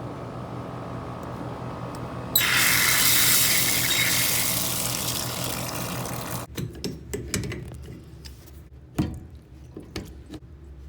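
Water tap running: a steady low flow, then turned up to a loud gushing rush about two seconds in that stops about four seconds later, followed by scattered knocks and clatters. The water is being run to trace a leak.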